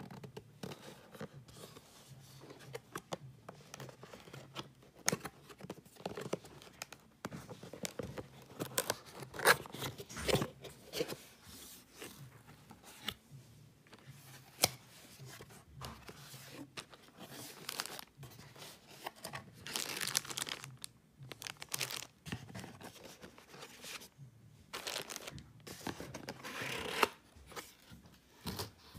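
Cardboard box and plastic wrapping being handled while a camcorder is unboxed: irregular rustling, crinkling and scraping with small knocks, and longer stretches of crinkling about 20 and 27 seconds in.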